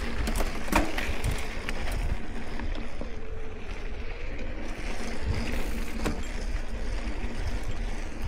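Mountain e-bike riding over a dirt trail: wind buffeting the microphone over the rumble of tyres on the dirt, with a few sharp rattles and clacks from the bike over bumps.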